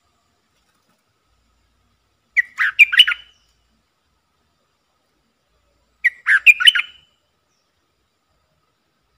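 Stripe-throated bulbul singing two short, quick chattering song phrases about three and a half seconds apart, each lasting about a second.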